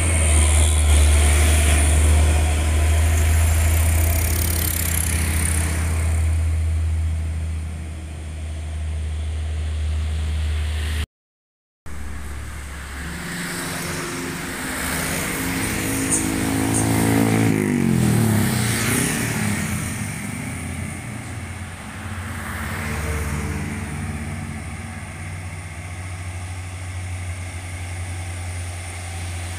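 Heavy Hino truck diesel engines working on a road climb. First a loud, steady low engine drone from a truck passing close, cutting out briefly about 11 seconds in. Then a second truck's engine, quieter, whose pitch falls away a few seconds later.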